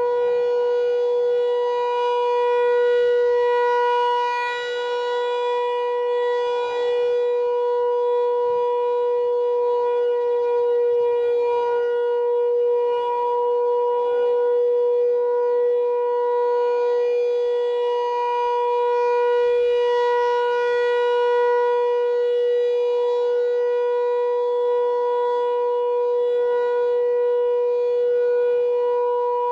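Outdoor warning siren sounding a steady tone, holding one pitch with only slight swells in loudness.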